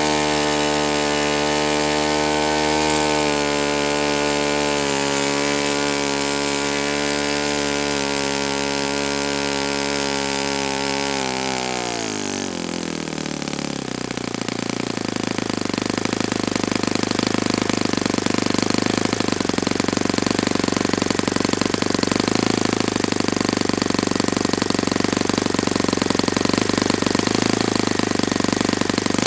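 Saito FA-72a four-stroke glow engine running at a steady high speed on the test stand, then throttled back about twelve seconds in, its pitch dropping sharply to a lower, rougher running speed that continues to the end.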